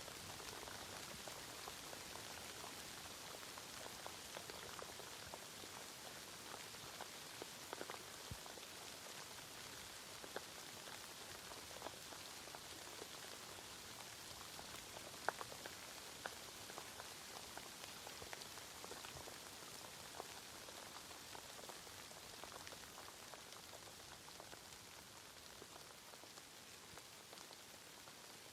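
Steady rain falling, a soft even hiss with scattered single drops ticking close by, growing slightly quieter near the end.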